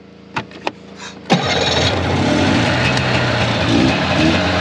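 Polaris Indy Lite Deluxe 340 snowmobile's two-stroke engine starting: it catches suddenly about a second in, after a few light clicks, and then runs steadily.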